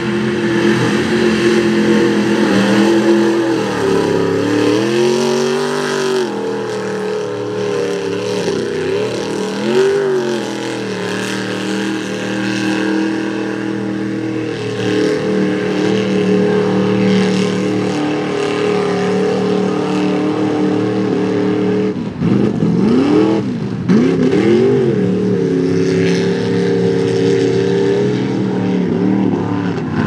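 Mud-bog truck's engine held at high revs as it plows through a mud pit, the revs dipping and surging back several times, around four and ten seconds in and again in the last third.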